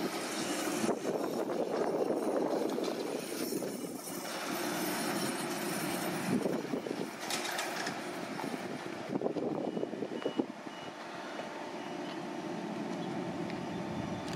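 Neoplan AN440LF-ETB electric trolleybus driving slowly around a curve. Its electric drive gives a steady hum over tyre and road noise.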